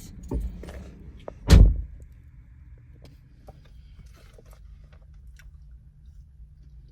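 A single loud thump about a second and a half in, over a low steady rumble, followed by scattered faint clicks and handling noises.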